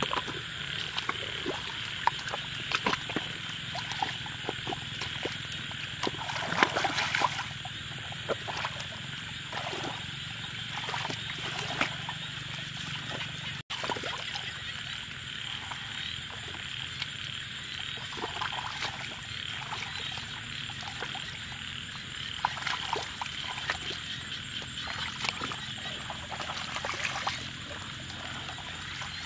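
Frogs calling in a steady chorus, with irregular splashing and sloshing of muddy water as hands dig in the mud and feet wade through a flooded paddy.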